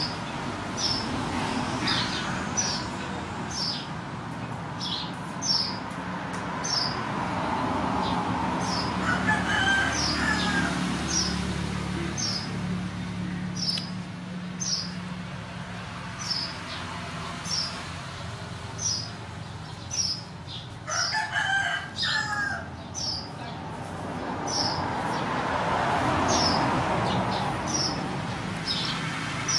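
Birds calling: a short high chirp repeated about every two-thirds of a second, with a rooster crowing now and then.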